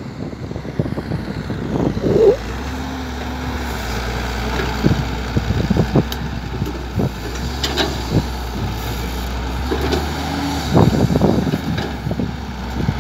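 Diesel engines of a Massey Ferguson tractor and a wheeled excavator running close by. A steady low drone sets in about two seconds in, with irregular knocks and thumps over it.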